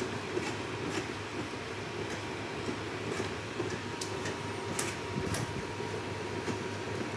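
Steady low hum and rumble of room noise, with a few faint short clicks.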